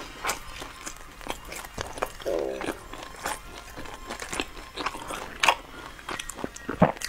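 Close-miked chewing of a crispy pan-fried dumpling: a steady run of small wet crunches and mouth clicks, with sharper crunches about five and a half and seven seconds in.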